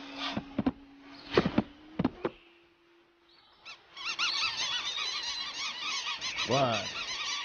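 A few short, sharp sounds, then about four seconds in a flock of small cartoon birds breaks into dense, high squawking chatter. Near the end a lower, falling honk from a large cartoon bird cuts through it.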